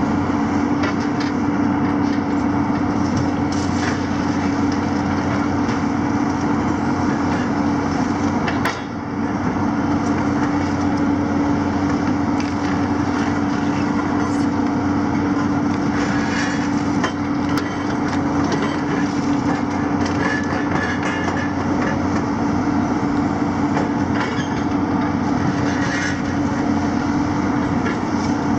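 Diesel engines and hydraulics of two demolition excavators, a JCB and a Hitachi 250, running steadily with a constant low drone. Scattered knocks and clatter of concrete and debris come through as their grabs work the building and rubble.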